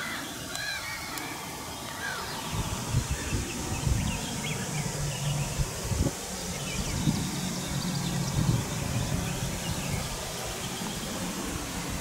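Outdoor ambience: small birds chirping in short arched notes during the first second. From about two and a half seconds in, an uneven low rumble with a faint low hum sets in and lasts to the end.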